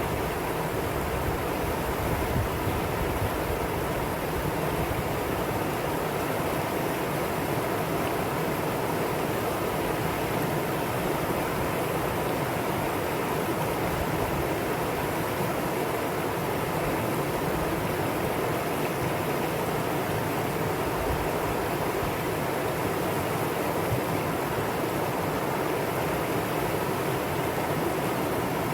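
A mountain valley stream: water rushing steadily over rocks.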